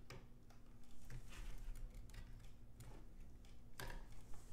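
Faint clicks and rustles of hands handling computer power cables and their plastic connectors, over a low steady hum.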